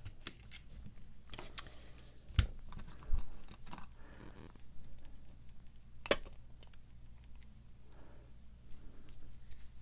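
Small metallic clicks and clinks from a padlock and lock-picking tools being handled, with a few sharper knocks scattered through.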